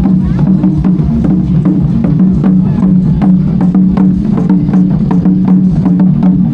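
Loud music with a fast percussive beat of clacking, wood-block-like strokes over a steady low held tone.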